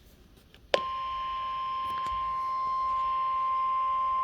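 NOAA Weather Radio's 1050 Hz warning alarm tone: after faint radio hiss, a click under a second in and then one steady, unbroken high beep that holds. It is the alert tone that comes before a spoken severe-weather warning.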